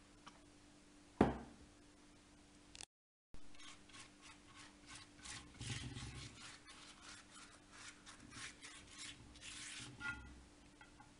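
Pastry brush spreading oil over a flatbread in a pan, in repeated short brushing strokes, a couple per second. A single sharp knock about a second in is the loudest sound.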